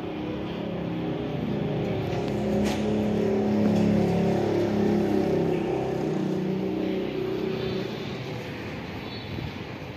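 A motor vehicle engine passing by, growing louder to a peak a few seconds in and then fading away.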